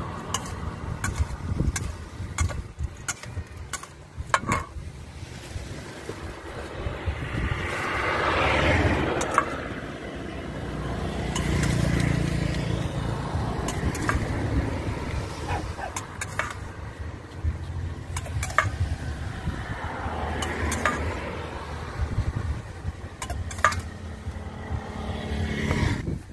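Metal spoon clinking and scraping against a stainless steel mixing bowl as a salad is tossed and served, in many short sharp clicks. Motor vehicles pass in the background, swelling up and fading away a few times.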